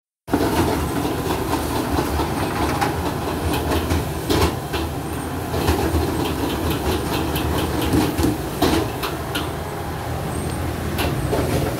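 Cleaver chopping a roast duck on a thick wooden chopping block: a dozen or so sharp, irregular chops over a steady background rumble.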